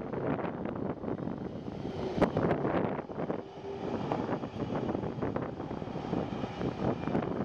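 Distant Boeing 737-800's CFM56 jet engines running as the airliner rolls on the runway for takeoff, mixed with gusty wind noise on the microphone.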